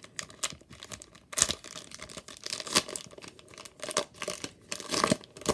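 A 2018 Topps Chrome trading card pack's wrapper being torn open and crinkled by hand: irregular crackles and rustles, the sharpest about a second and a half in, near three seconds and about five seconds in.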